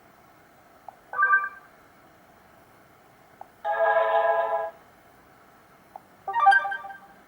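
Black Fox B5 phone's speaker playing three short stock ringtone snippets, each different and about a second or less long, each just after a faint click, with a steady faint hiss in between.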